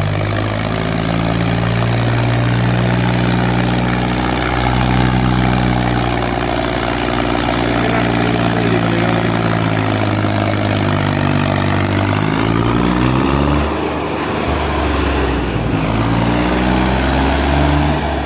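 Mahindra 275 DI tractor's three-cylinder diesel engine running under heavy load as it pulls a trolley up out of soft sand ruts. The engine note holds steady, then wavers and shifts in pitch about two-thirds of the way through as the tractor works its way out.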